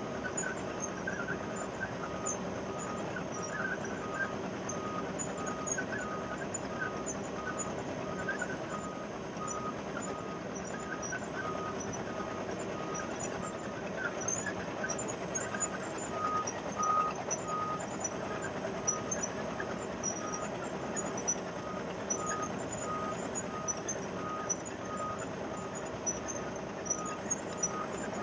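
Wirtgen 210Fi cold milling machine's diesel engine running steadily at work, with a backup alarm beeping evenly about every 0.7 seconds.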